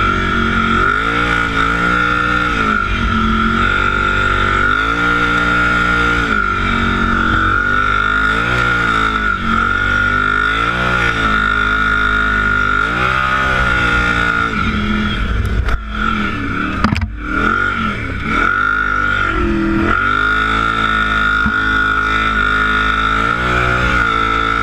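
Kawasaki Brute Force ATV's big-bore 840 V-twin engine under way, revving up and down every second or two as the throttle is worked, with a steady high whine running over it. It backs off briefly about two-thirds of the way through, then picks up again.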